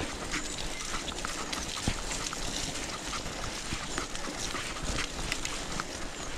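B'Twin 520 mountain bike riding along wet, muddy woodland singletrack: tyres rolling over the dirt, with a steady stream of small clicks and rattles from the bike over the bumps.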